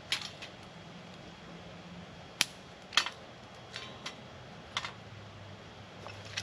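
About seven sharp, irregularly spaced snaps and clicks, the loudest two near the middle.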